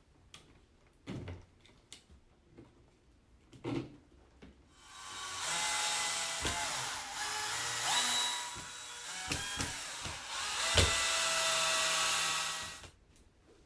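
Power drill-driver running for several seconds, its pitch wavering as it tightens the fasteners on the cage's side struts, with a short dip midway; a couple of knocks come before it.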